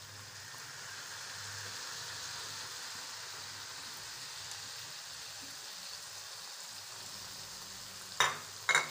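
Chicken pieces sizzling in hot oil in a nonstick wok, with ground spices just added on top: a steady frying hiss. Near the end come two sharp knocks about half a second apart.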